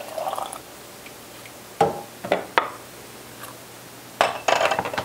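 A brief pour of molasses syrup through a plastic funnel into a glass mason jar, then sharp clinks and knocks of glass jars and a ladle. A few come singly, then a quick cluster near the end as the filled jar is set down among the others.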